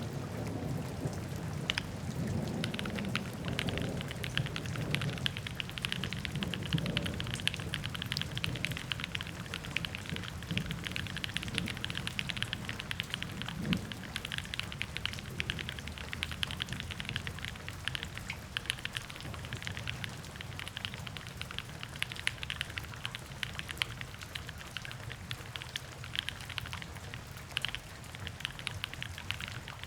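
Continuous fast typing on a Mode Sonnet mechanical keyboard, with Gateron Cream Soda linear switches on a full aluminium plate and GMK keycaps: a dense, unbroken patter of key clacks with a deeper thock underneath.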